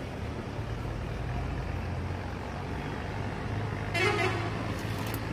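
A motor vehicle's engine running steadily, with a short horn toot about four seconds in.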